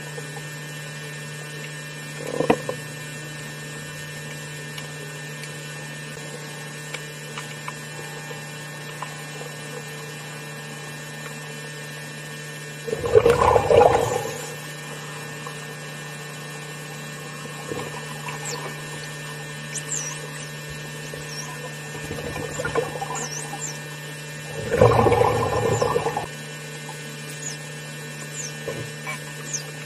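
Underwater recording among bottlenose dolphins: a steady low hum throughout, broken by a few noisy water bursts about a second long, one near the start and louder ones about 13 seconds in and about 25 seconds in, with faint short high chirps in the second half.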